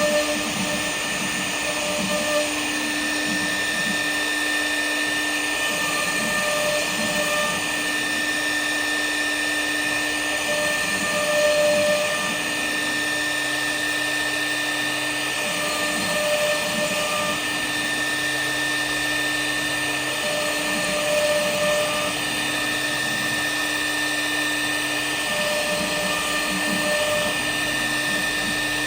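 K1-1325 CNC router running: a steady, high-pitched spindle whine, with a second tone that comes and goes every four to five seconds.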